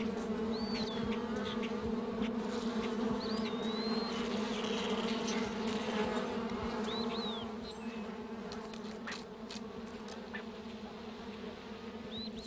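Colony of honeybees buzzing at their nest entrance in a hollow tree: a steady hum of many wingbeats that weakens about two-thirds of the way through.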